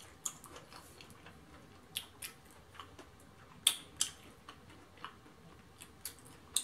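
Close-up eating sounds from a person picking at and chewing fried chicken: scattered soft clicks and mouth smacks, with a few sharper ones about two and four seconds in.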